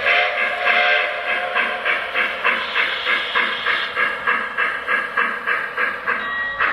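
Steam sounds from a Lionel Legacy-equipped 2-truck Shay model locomotive: an even run of chuffs at about four a second, with a steam whistle blowing in the first second.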